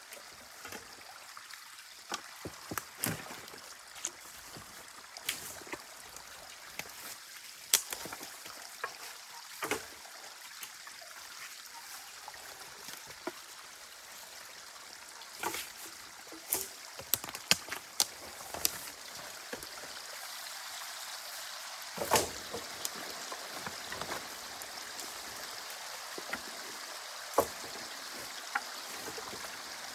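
Water trickling and running steadily through a beaver dam, with irregular sharp knocks and splashes scattered throughout, the loudest about a quarter of the way in and twice more in the last third.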